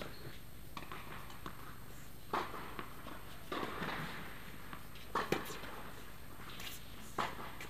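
Tennis ball being struck by rackets and bouncing on an indoor hard court: several sharp pops that echo in the hall, the loudest about five seconds in, with footsteps on the court.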